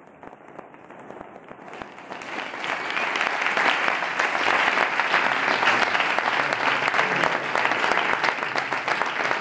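Audience applauding. It begins as scattered claps and swells to full, steady applause about two to three seconds in.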